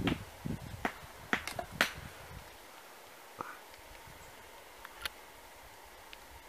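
Handling noise from a wooden bow drill bow and its cord being re-tied: several sharp clicks and taps in the first two seconds, then two or three faint clicks.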